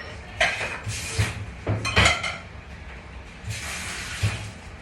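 Plates and dishes clinking and clattering as they are handled in a commercial kitchen. A few sharp knocks come in the first two seconds, then a short hiss about three and a half seconds in.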